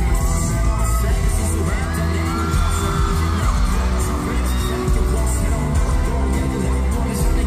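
Live K-pop band music played loud over a concert PA, with a steady heavy bass beat.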